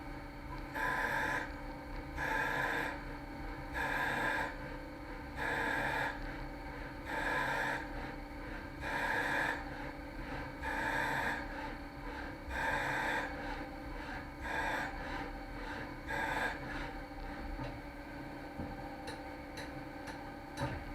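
CNC lathe running a repeating cycle: a rasping machining noise comes about every one and three-quarter seconds, ten times, then stops, leaving a steady machine hum with a few sharp clicks near the end.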